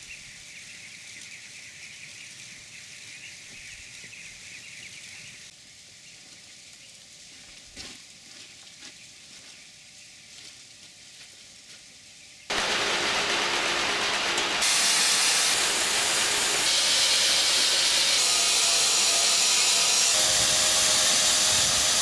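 Low background hiss at first. About halfway through, a loud, steady rushing hiss sets in and holds to the end: grain pouring from a tipper trailer into a feed auger's hopper.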